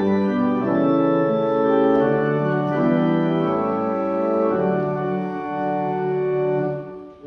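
Organ playing the introduction to a hymn in sustained, steadily changing chords, breaking off briefly near the end before the congregation comes in.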